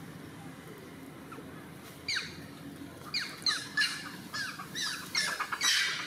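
A run of short, high-pitched animal calls, each falling steeply in pitch. They start about two seconds in and come faster toward the end, about three a second.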